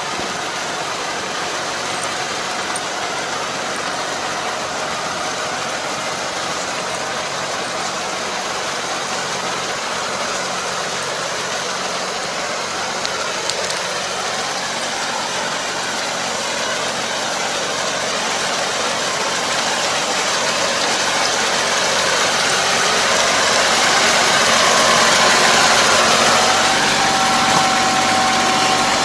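Tractor engine running steadily while pulling a drive harrow through a flooded rice paddy to puddle it. It grows louder over the last ten seconds as it comes closer, and a steady whine joins near the end.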